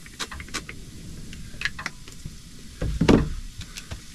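A few short spritzes from a spray-oil bottle onto a camping pan, then a louder knock and rattle of handling about three seconds in.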